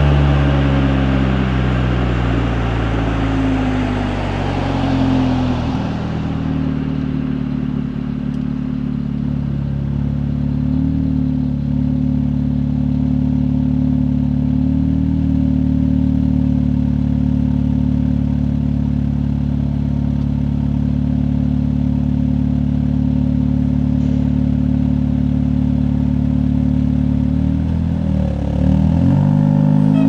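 Audi S3 8V's turbocharged 2.0-litre four-cylinder with an aftermarket cold air intake: revs falling as the car slows for the first few seconds, then idling steadily, with the revs starting to rise again near the end as it pulls away.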